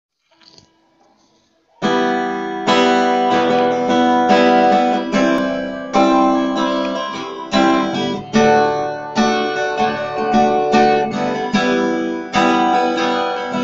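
Acoustic guitar playing a song's instrumental introduction, plucked and strummed chords with a new note or chord every half second or so. It comes in suddenly about two seconds in, after a faint start.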